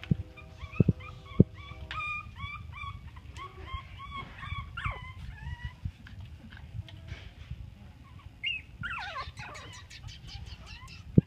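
Chihuahua puppies whimpering and squeaking, with many short, high calls one after another. A few sharp knocks come in the first second and a half, and another comes at the very end.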